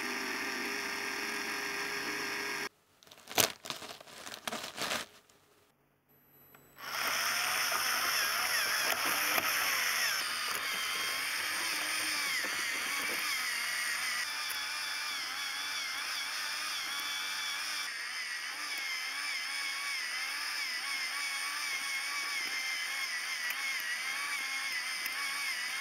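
Lego Technic tracked vehicle running: small electric motors whining, the whine wavering in pitch, over the clatter of plastic gears and track links. About three seconds in the running stops for a run of sharp plastic clicks and a brief near-silent gap before the motors start again.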